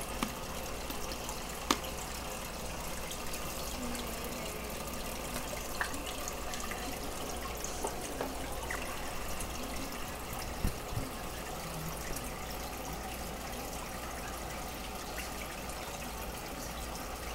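Steady bubbling and trickling of water in a goldfish aquarium, from the stream of air bubbles breaking the surface, over a low hum. A sharp click comes just under two seconds in and another near the middle.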